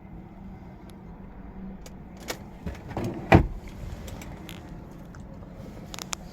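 Handling noises in a car's cabin: a few light clicks and one dull knock a little over three seconds in, over a faint steady low hum.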